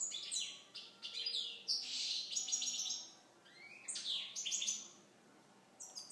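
European goldfinch of the Balkan subspecies (Carduelis carduelis balcanica) singing: bursts of rapid, high twittering and trills, with short pauses about three and five seconds in.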